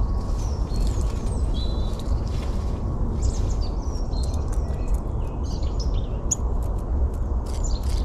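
Wild songbirds calling: short high chirps and whistles, some with quick pitch glides, and a few sharp clicks in the second half, over a steady low rumble.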